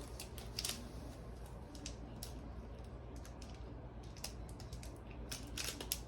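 Small plastic accessory package being handled and turned over, giving scattered light clicks and crinkles, a few bunched near the end, over a steady low hum.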